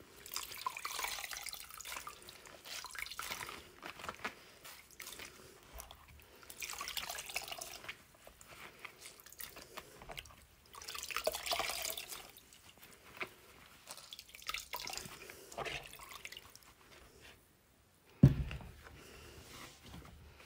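Water dripping and splashing back into a plastic bowl as rinsed wet wool locks are squeezed out by gloved hands, in four or five bouts of a second or two each. A single sharp thump near the end is the loudest sound.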